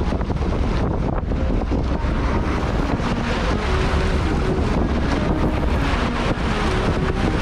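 Wind buffeting the microphone over the steady rumble of the sportfishing boat's engines and the rush of churning whitewater at the stern.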